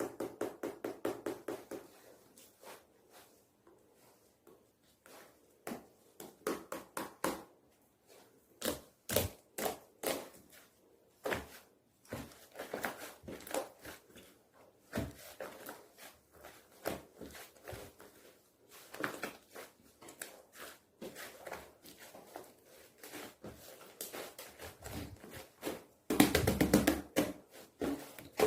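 Slime and shaving foam being handled and mixed, heard as irregular small taps, clicks and sticky squishes, with a quick run of ticks at the start. Near the end comes a louder two-second sputtering burst, typical of a nearly empty shaving-foam can spitting out the last foam.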